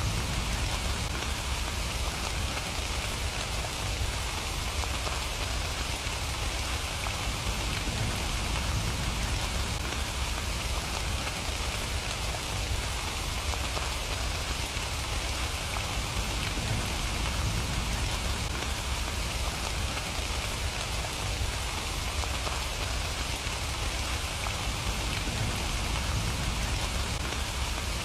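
Steady rain falling, an even pattering of raindrops on surfaces with no change in intensity.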